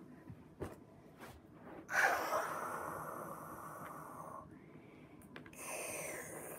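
A person's loud breathy sounds: a sudden gasp-like rush of breath about two seconds in that lasts a couple of seconds, then another breathy, falling sound near the end.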